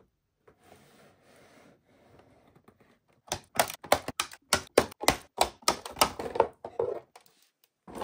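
Scissors snipping through the plastic ties that hold action figures in their box, a quick run of sharp clicks starting about three seconds in and stopping shortly before the end, after faint rustling of the packaging.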